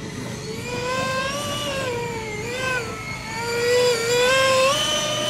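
Twin electric ducted fans of a Freewing Eurofighter RC jet whining in flight, the pitch wavering up and down with the throttle and stepping up sharply near the end.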